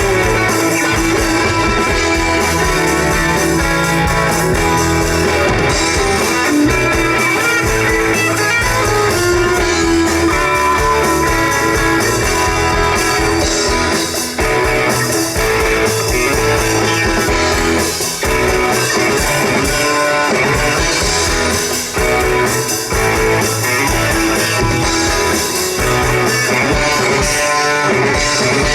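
Live band playing an instrumental passage with no singing: guitar to the fore over bass and a steady beat.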